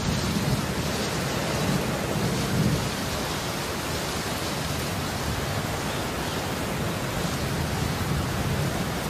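Steady hiss of rain from a thunderstorm, with low thunder rumbling underneath.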